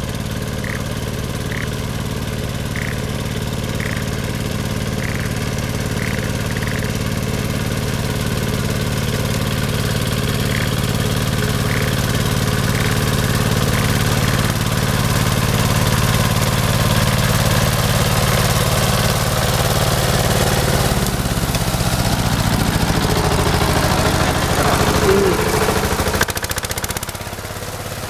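Yanmar YC950 walk-behind tiller's engine running steadily under load while its rotary puddles a flooded rice paddy. After about twenty seconds the engine note drops and turns uneven, and it eases off near the end.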